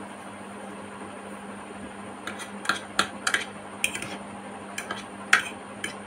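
A metal fork clinking and scraping against a ceramic plate while gathering noodles: a run of about eight sharp clinks, the loudest near the end. A steady low hum and hiss run underneath.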